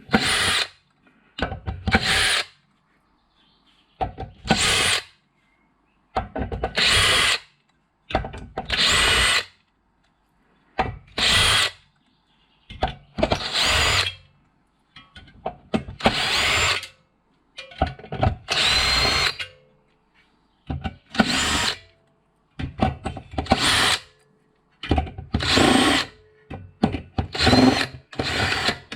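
Power drill-driver backing steel screws out of an RF amplifier in a rapid series of short bursts, about fifteen in all. Each burst spins up with a rising whine, with short pauses between them.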